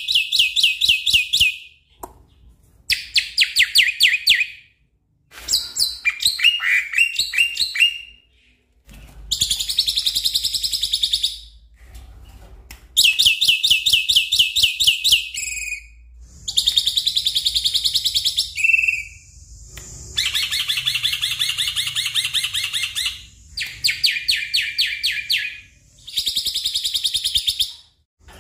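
Black-winged myna calling in loud runs of rapid, repeated chattering notes. There are about nine runs of one to three seconds each, separated by short pauses.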